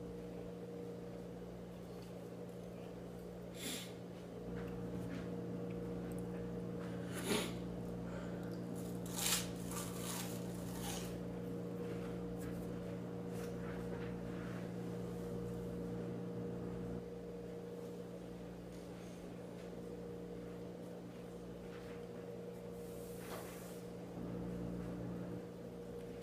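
A man chewing toast, with a few short crisp crunches about 4, 7 and 9 to 11 seconds in, over a steady low electrical hum.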